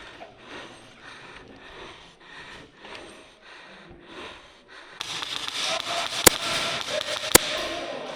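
Faint rhythmic breathing, then a steady rushing noise that starts abruptly about five seconds in, with two sharp airsoft gun shots about a second apart.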